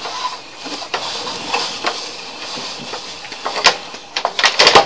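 Sewer inspection camera's push cable being fed quickly down a pipe: a steady scraping hiss with scattered clicks, then a run of loud clattering clicks near the end.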